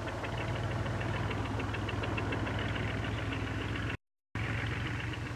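Engine of a farm vehicle running steadily with a rapid, even knocking beat. The sound cuts out completely for a moment about four seconds in.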